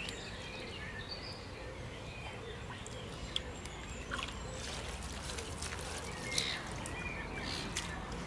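Small splashes and trickling of lake water as hands move in the shallow margin and the landing net, a few sharp little splashes standing out, with birds singing in the background.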